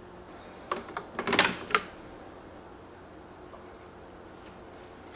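Sheet pan being handled with oven mitts: a quick cluster of clatters and knocks between one and two seconds in.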